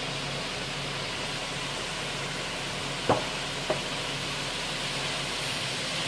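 Concrete mixer truck running steadily with a hissing background, broken by two sharp knocks about three seconds in, half a second apart, the first louder.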